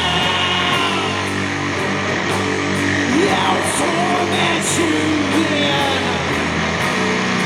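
Live doom metal band playing: sustained guitar and bass chords with a wavering sung line over them.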